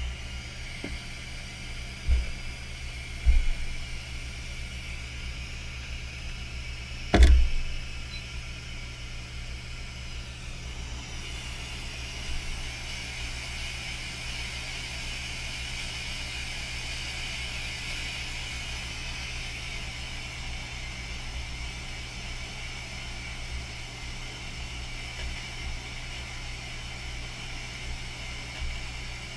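Hot air rework station blowing steadily to melt the solder under a replacement HDMI port, a steady airy whir with a whine that grows stronger about eleven seconds in. A few knocks, the loudest about seven seconds in.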